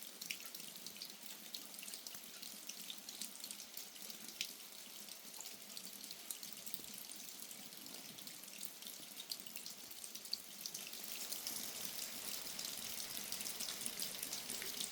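Steady rain falling, a hiss dotted with many small drip and splash ticks, growing a little louder about two-thirds of the way through.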